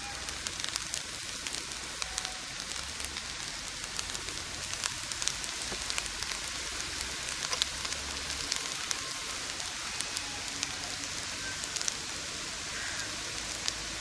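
Food sizzling in hot oil in a pan, a steady hiss with many small crackles.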